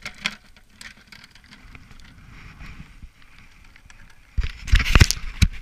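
Light handling noise and scattered small clicks from fishing gear. Near the end comes about a second of loud rumbling buffeting on the microphone with sharp clicks, as a sabiki rig is cast with a spinning rod.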